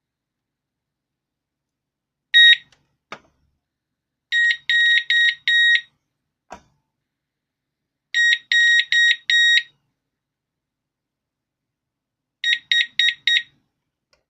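Digoo DG-ROSA wireless alarm siren unit beeping in groups of high, steady beeps. First comes a single loud beep, then a click, then a group of four beeps, another click, a second group of four, and near the end a faster group of four short beeps.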